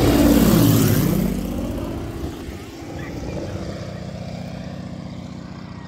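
Light single-engine propeller plane towing a glider, passing low overhead. The drone of its engine and propeller is loudest in the first second and drops in pitch as it goes by. It then settles to a steadier, lower drone that fades as the plane flies away.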